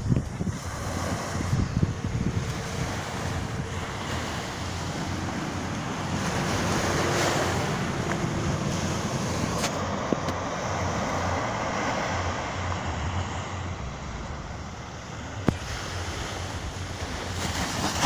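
Surf washing onto a sandy beach, with wind buffeting the microphone; a single sharp click about three-quarters of the way through.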